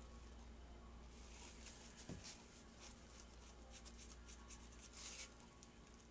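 Faint rustling and rubbing of a tissue wiped around the rim of a metal bottle cap, clearing stray embossing powder from the edge. A soft tap about two seconds in.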